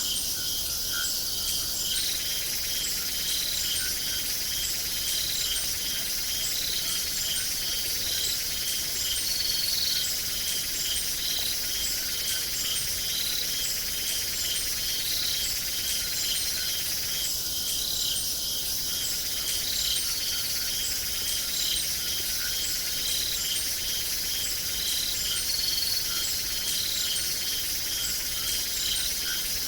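Crickets chirping in chorus: a steady high-pitched trill with regular chirps about twice a second over it.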